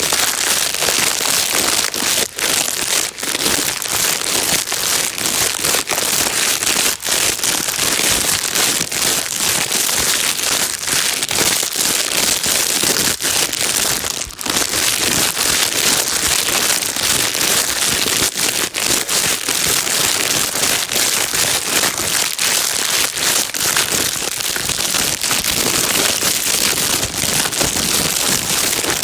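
Plastic bag being crinkled and rustled without a break: dense, fast crackling over a steady hiss.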